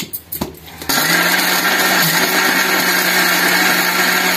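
A few knocks as the steel jar and its lid are fitted on the base, then about a second in an electric mixer grinder starts and runs at a steady pitch, grinding sautéed ivy gourd chutney ingredients into a paste.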